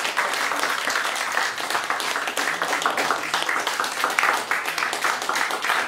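Audience applauding: many people clapping at once in a dense, continuous patter.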